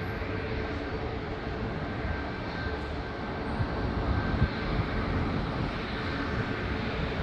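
Airbus A330-941's Rolls-Royce Trent 7000 turbofans running at takeoff power, a steady rumble with a faint steady whine on top.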